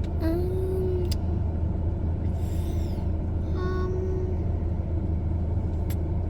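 Steady low engine rumble, with a couple of brief faint higher tones over it.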